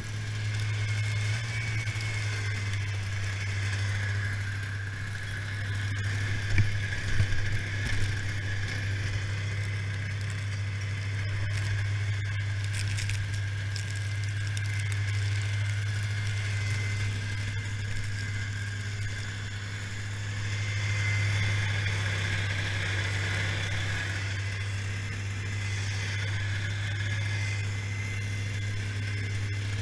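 1991 Yamaha Phazer II snowmobile's two-stroke engine idling steadily, its pitch unchanging, with a few short knocks around seven to eight seconds in.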